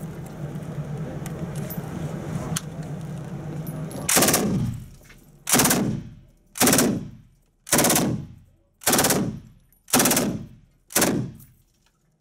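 AA52 general purpose machine gun firing seven short bursts of automatic fire, about one a second, each ringing off the walls of an indoor range. A low steady hum fills the first few seconds before the first burst.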